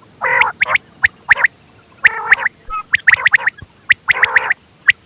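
Quail calling over and over: each phrase is a short harsh nasal note followed by two or three sharp high notes, about one phrase a second. This is a recorded call of the kind played as a lure for hunting quail.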